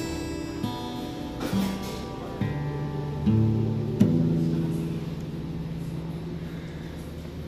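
Acoustic guitar played slowly: single notes and chords plucked about once a second, each left to ring and fade, with a sharper strummed chord about four seconds in.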